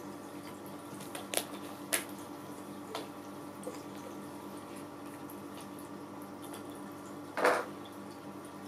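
Cats moving around a glass vase lying on a foam floor mat: a few small clicks and taps, then one brief louder rustle near the end, over a steady electrical hum.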